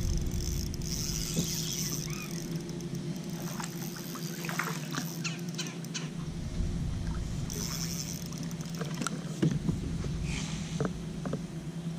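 Spinning reel being wound while a small largemouth bass splashes and fights on the line, with scattered ticks and squeaks. A few sharp knocks near the end come as the fish is swung aboard the boat. A faint steady hum runs underneath.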